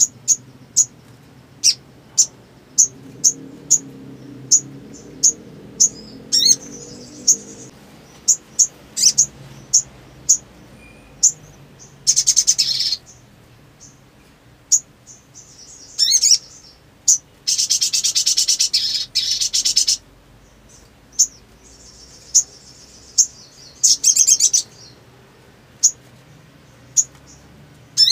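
Sunbird (sogon) calling: a run of sharp high chips, about one every half second to second, broken by several rapid buzzing trills lasting one to two seconds, the longest a little past the middle.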